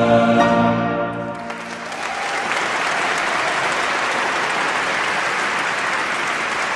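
A sustained musical chord fades out in the first second and a half. Steady applause from a crowd starts about two seconds in and continues.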